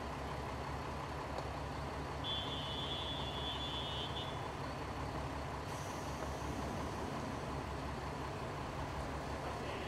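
Diesel railcar's underfloor engine idling steadily at a station stop. A short high electronic tone sounds about two seconds in, and a steady hiss of air starts near six seconds as the doors close.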